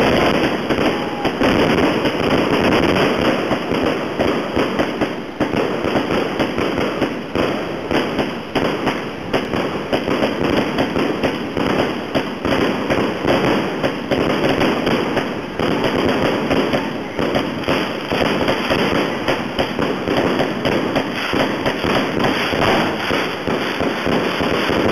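Fireworks going off in a dense, continuous barrage: rapid bangs and crackling from many aerial bursts overlapping without a pause.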